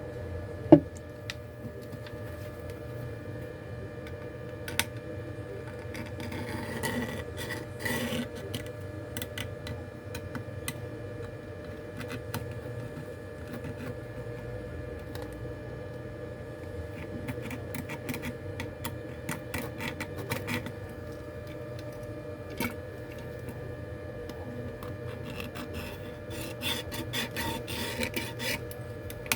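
Small repair tools scraping and rubbing on a phone, with scattered light clicks and one sharp click about a second in, over a steady hum.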